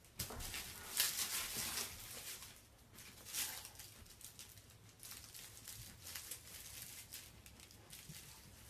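Rustling and scuffling of a collapsible fabric hamper as a dog noses and pushes into it, in short bursts, strongest in the first couple of seconds and again about three and a half seconds in.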